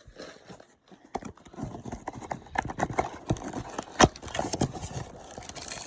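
Baseball cards handled and flipped through one after another, with many irregular sharp clicks and taps of card stock, the loudest about four seconds in.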